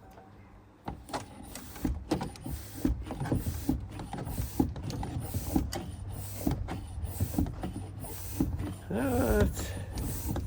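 Air pump inflating a garden cart's inner tube, going in short repeated strokes roughly once a second over a steady low hum. The pump connects poorly to a sunken valve stem, so the tyre takes air only slowly.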